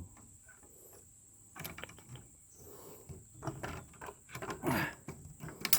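Irregular clicks, knocks and rattles of computer hardware being handled, here a slot-style processor cartridge being worked on. The knocks come more thickly near the end.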